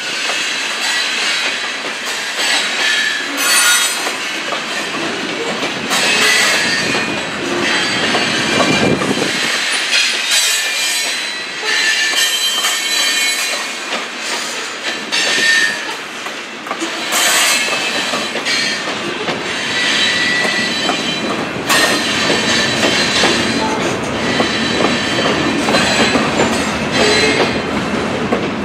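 Loaded hopper cars of a freight train rolling past: steel wheels clacking over rail joints and the crossing, with intermittent high-pitched wheel squeal.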